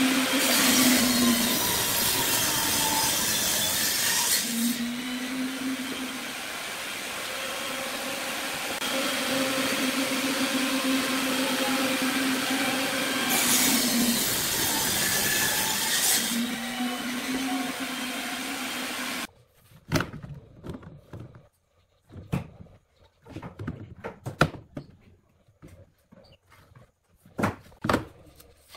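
Wood lathe running while a turning tool cuts the spinning wood, with a steady hum under loud hissing spells of cutting near the start and again around the middle. The machine noise stops abruptly about two-thirds of the way through, followed by scattered light knocks and clicks of handling.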